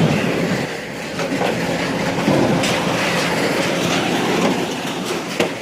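Scrap metal being shifted and dragged, a steady metallic scraping and rumbling with scattered clanks and short squeals.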